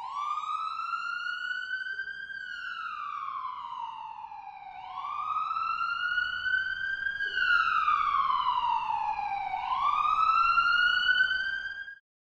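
Emergency vehicle siren wailing, its pitch sweeping slowly up and down about every five seconds, then cutting off abruptly.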